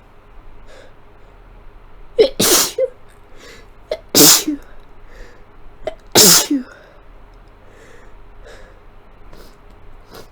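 A sneezing fit from a person with a cold: three loud, messy sneezes about two seconds apart, with small breaths and sniffles between them.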